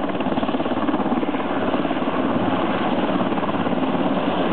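Rescue helicopter running steadily and loudly, its rotor blades beating in a rapid, even chop over the engine's drone.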